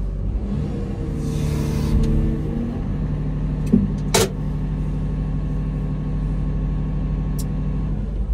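Excavator's diesel engine and hydraulics working, heard from inside the cab; the engine note steps up under load about half a second in, with a hiss between about one and two and a half seconds and two sharp clicks about four seconds in.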